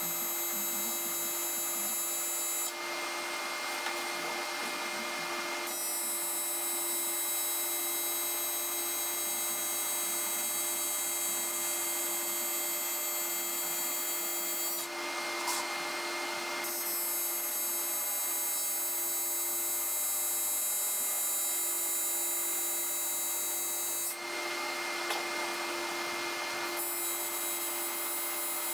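Electric welding arc on aluminum sheet, a steady buzz broken three times by a few seconds of hiss as the welder stitches short welds across the top.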